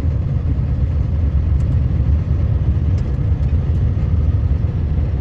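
Steady low rumble of a vehicle driving on a snow-covered gravel road, heard from inside the cab, with a few faint clicks.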